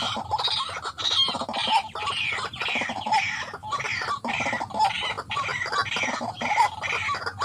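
White-breasted waterhen calling: a loud, rhythmic series of harsh clucking notes, about two a second, each sliding down in pitch.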